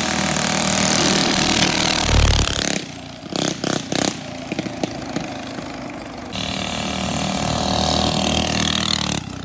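Minibike's small single-cylinder engine running loud, with a heavy low thump about two seconds in. The engine drops away for a few seconds with a few sharp knocks, then runs loud again.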